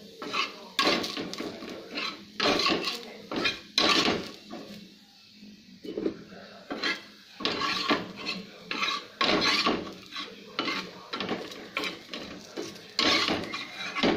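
Irregular clatter and scraping of kitchen utensils and pans: a plastic spatula working patties in a frying pan and cookware being handled on the counter, in bursts of a second or two with short gaps.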